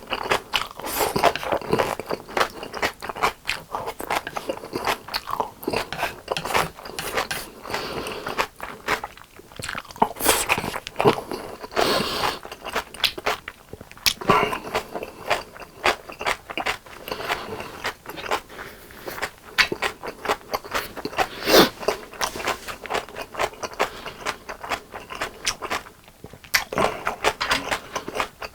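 Close-miked crunching and chewing of crisp fried chicken, a dense run of crackling bites with a few louder crunches.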